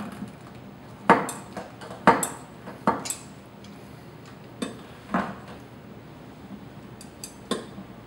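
Channel-lock pliers clinking on a kitchen faucet's spout nut as it is gripped and loosened through a rag to free the spout. A handful of sharp, irregular metal clicks, the loudest about one and two seconds in.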